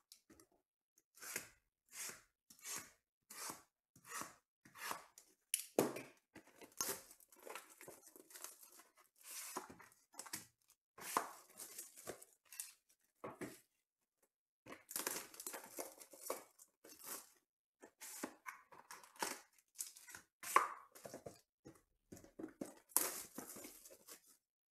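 Plastic shrink wrap on trading-card boxes being slit with a blade and torn off: a run of short scratchy rips about one every three-quarters of a second, then longer crinkling tears as the wrap is peeled away.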